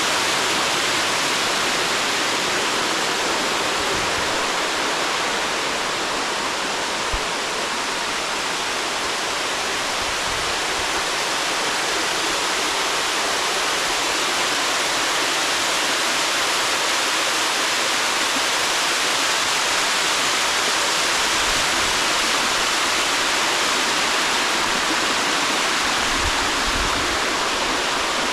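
Water rushing over a small waterfall in a steady, loud rush with no change.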